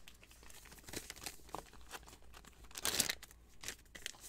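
Trading-card pack wrappers being handled and torn open: faint crinkling and rustling of paper and foil, with one louder rustle about three seconds in.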